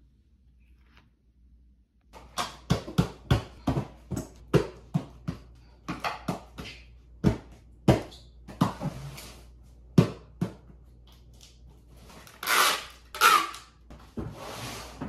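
Cardboard shipping boxes being packed and handled: a quick uneven run of knocks and taps on the cardboard, starting about two seconds in, then two short rasping noises near the end.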